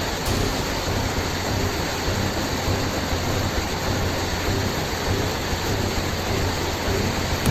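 Atlantic waves crashing on a rocky shore: a continuous rush of churning water with a deep rumble underneath.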